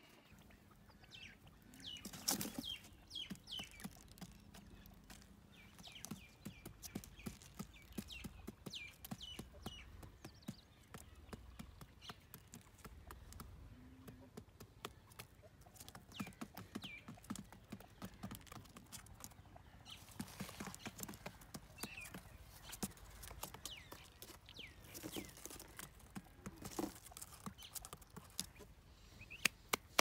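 Quail pecking grain and stepping about on a cardboard box trap: many small irregular taps and clicks, with now and then a short high falling chirp. A sharp knock about two seconds in.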